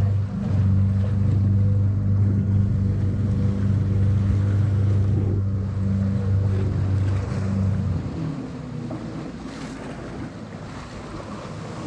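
Small tour boat's engine running with a steady low hum, then throttled back about eight seconds in. After that, water washes against the hull and wind buffets the microphone.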